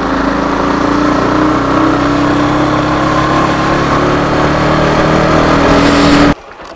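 Motorcycle engine running under throttle while riding, its pitch rising slowly, with road and wind noise; it cuts off abruptly about six seconds in.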